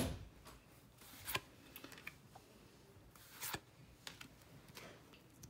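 Trading cards being handled and thumbed through by hand: faint rustling with scattered soft clicks, and a few sharper card snaps near the start, about a second and a half in and about three and a half seconds in.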